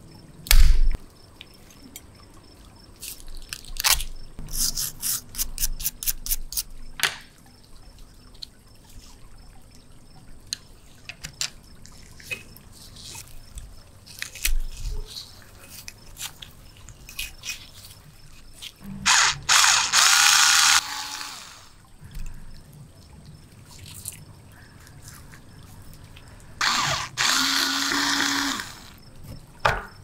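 Small hand tools working on a badly corroded die-cast toy tractor: many small clicks, taps and picking noises of pliers and tweezers against the metal and the crusty corrosion, with a sharp knock just under a second in. In the second half come two loud scraping passes of about two seconds each, a metal edge scraped across the corroded surface.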